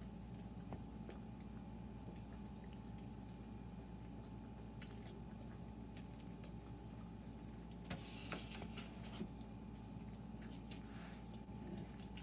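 Faint chewing and small wet mouth clicks from people eating pizza, over a steady low hum. A short hissing noise comes about eight seconds in.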